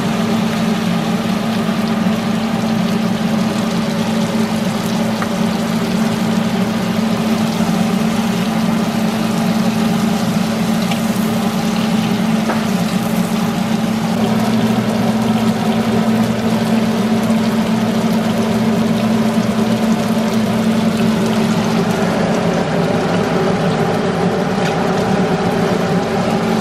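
A steady motor hum from a kitchen exhaust fan, with chicken wings sizzling in a wok underneath.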